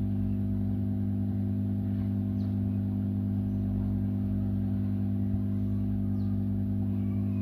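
A steady electrical hum with several overtones, unchanging throughout.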